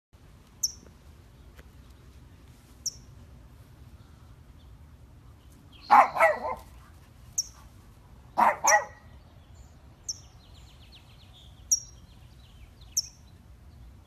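A small dog barks twice in quick pairs, about six and eight and a half seconds in, at a perched bird. Between and around the barks the bird gives short, high chirps, about six of them, one every couple of seconds.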